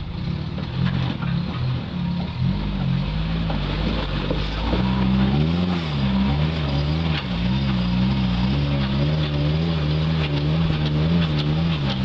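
Off-road vehicle engine revving up and down under load as it climbs a rocky obstacle, the throttle worked on and off so the pitch keeps rising and falling, more so in the second half.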